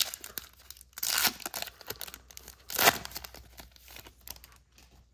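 Wrapper of a pack of baseball cards being torn open and crinkled: a rip about a second in, a louder sharper one near three seconds, then softer crinkling that dies away.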